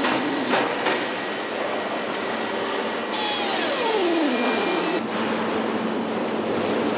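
Factory assembly-hall machinery noise: a steady mechanical hiss and hum, with a falling whine about halfway through.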